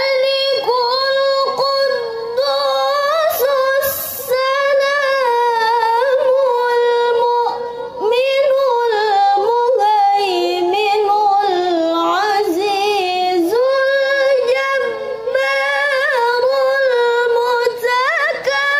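A young woman's solo Quran recitation in the melodic tilawah style. She sings long, ornamented phrases of held notes that waver and slide in pitch, breaking only briefly for breath a couple of times.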